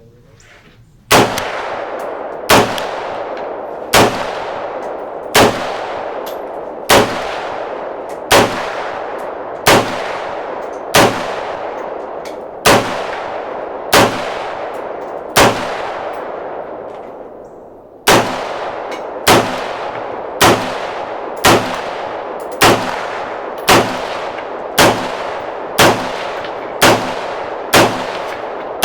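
Del-Ton AR-15 rifle fired in slow semi-automatic shots, about twenty in all, each followed by a long echoing tail. The first string comes about one shot every second and a half; after a pause of nearly three seconds a second string follows, a little faster.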